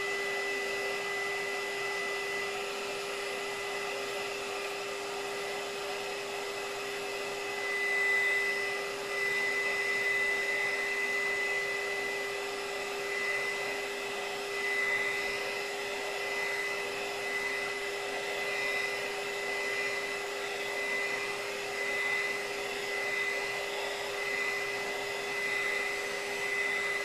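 Handheld heat gun running steadily, its fan blowing hot air with a constant hum and a thin high whine.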